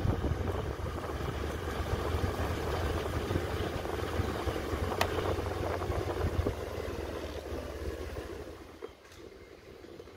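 Motorcycle ride: wind buffeting the microphone over the running engine, a low rumble that eases off near the end.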